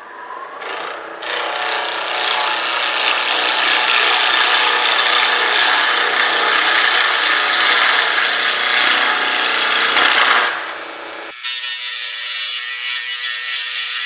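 A gouge cutting a spinning burl-wood and resin blank on a wood lathe: a loud, continuous scraping cut that stops briefly about ten seconds in and resumes with a thinner, higher sound. The blank is chipping out under the cut, which the turner puts down to a dulling tool edge.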